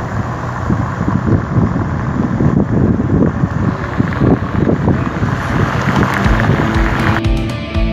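A moving car's engine and road noise, with wind buffeting the microphone. Music comes in near the end.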